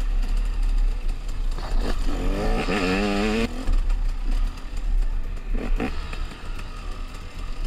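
Motorcycle running with a deep steady rumble. About two seconds in, a louder wavering pitched sound lasts for over a second, and a shorter burst follows a few seconds later.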